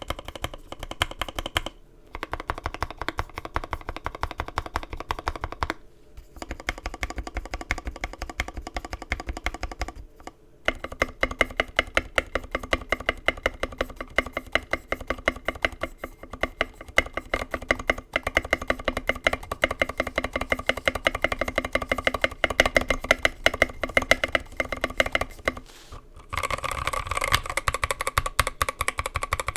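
Fast, steady typing on a Mark 65 mechanical keyboard with an aluminium plate and Gateron Milky Yellow linear switches, lubed with 205g0 and filmed. The typing comes in several stretches separated by brief pauses, and the last stretch, near the end, sounds brighter and louder.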